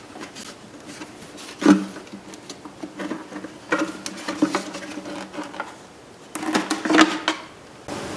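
Hard plastic headlight housing and trim bezel being handled and worked apart: irregular clicks, knocks and rubbing. There is a sharp knock a couple of seconds in and a cluster of clacks near the end, over a faint steady hum.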